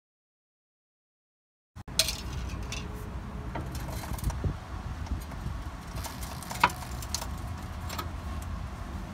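Silence for about two seconds, then scattered light metallic clinks and taps of steel hardware as a new shock absorber's lower eye is worked onto its mounting bolt, over a steady low hum. One sharper clink comes about two-thirds of the way through.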